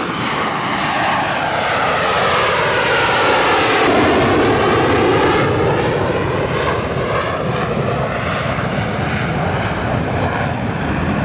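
F-35B Lightning II's Pratt & Whitney F135 jet engine running as the jet flies low past in short-takeoff/vertical-landing mode with its lift fan engaged. Loudest about four seconds in as it passes, then easing slightly as it flies away.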